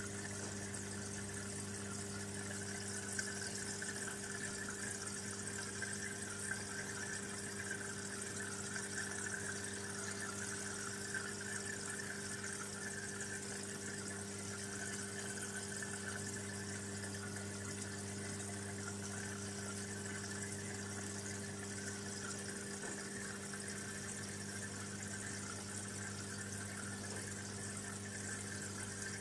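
Aquarium pump humming steadily, with a constant trickle of water.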